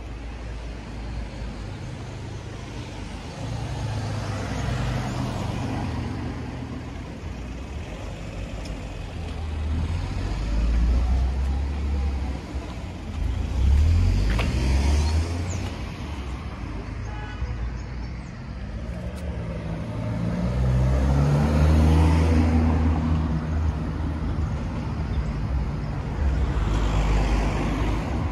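Street traffic: several cars driving past one after another, each engine swelling and fading away.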